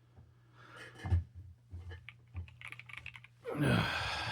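A few light clicks and clacks of a mechanical keyboard being handled, then, near the end, the loudest sound: a breathy, falling voice sound like a sigh.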